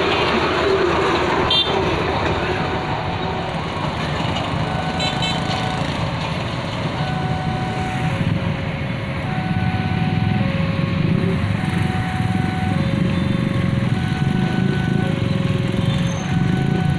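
A heavy engine running steadily, growing louder about halfway through, with a repeating electronic tone that alternates between a higher and a lower note about once a second.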